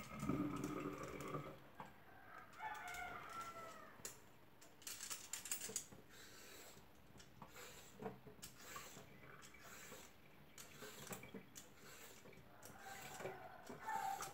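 A rooster crows in the background about two to four seconds in. Soft, scattered scrapes and clicks come from a white radish being peeled over a stainless steel sink.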